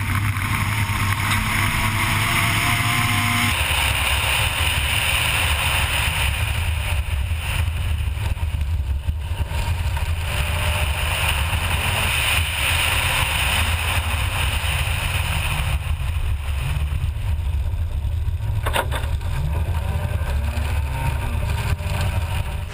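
Honda Civic Type R rally car's four-cylinder engine running hard at speed on a gravel stage, with wind and tyre-on-gravel noise. The sound changes abruptly about three and a half seconds in, after which the engine note is lower and the wind and gravel hiss louder.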